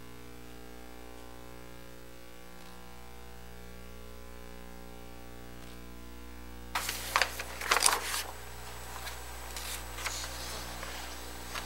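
Steady electrical mains hum on the meeting-room sound system, with a cluster of sharp clicks and handling noises about seven seconds in and a few fainter clicks after.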